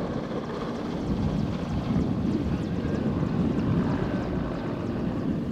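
Mil Mi-17 helicopter flying low overhead: a loud, dense rumble of rotor and engine, with a rapid chop. It starts abruptly and swells about a second in.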